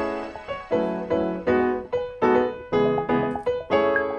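Background music: a piano playing repeated struck chords, about two to three a second, each fading before the next.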